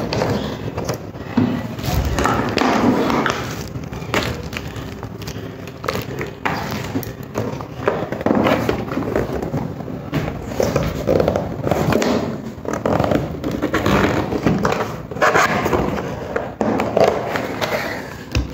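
A cardboard printer box being handled and opened on a tabletop: cardboard scraping and rubbing against the table, with irregular knocks and thumps throughout.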